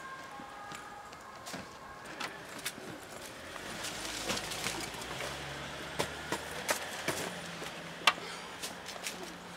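A wheeled suitcase is handled and pushed into a bush, giving scattered clicks and knocks; the sharpest knock comes about eight seconds in.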